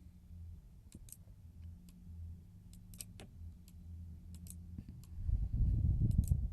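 Computer mouse clicking, scattered single and double clicks, over a low steady hum. About five seconds in, a louder low muffled rumble lasts about a second.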